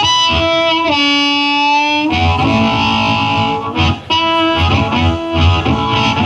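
Amplified blues harmonica, cupped with a handheld microphone. A long held note steps down in pitch about a second in, then runs into shorter phrases as the band comes in low beneath it after about two seconds.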